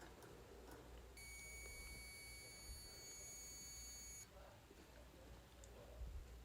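Multimeter continuity beeper sounding one steady beep of about three seconds, starting about a second in: the probes are across a closed, unbroken circuit.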